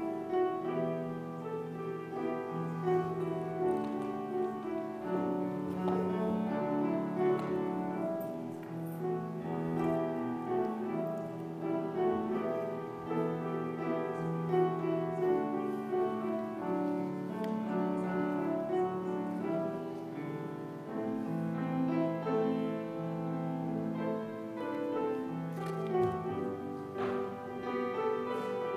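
Calm instrumental music led by piano, with held notes and chords changing every second or two.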